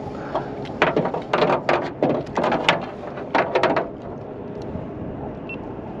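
A burst of irregular, clattering knocks lasting about three seconds, dying away about four seconds in, over a steady low hum.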